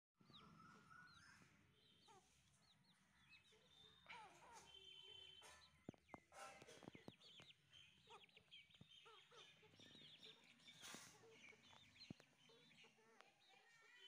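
Faint peeping of Aseel chicks, many short high calls, with occasional clucks from the adult chickens and a few sharp clicks.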